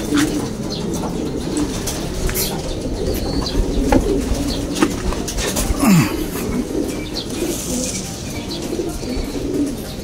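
Racing pigeons cooing, low throaty coos overlapping one another, with a few light clicks.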